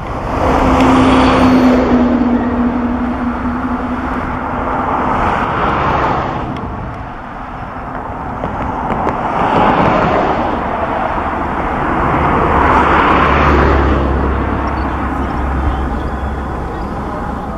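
Jet noise from the four turbofan engines of a Boeing 747-400 flying past low overhead, rising and falling in loudness as it goes by. In the first few seconds a steady low hum sinks slightly in pitch.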